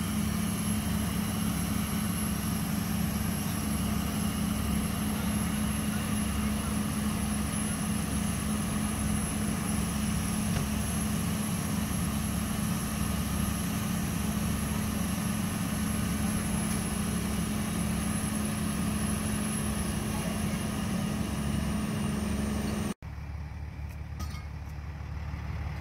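A vehicle engine running steadily with a constant low hum. It breaks off abruptly near the end and comes back quieter.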